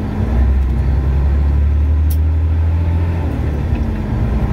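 Freightliner Coronado semi truck's diesel engine running as the truck drives across an intersection, heard from inside the cab as a steady low drone. A brief click sounds about two seconds in.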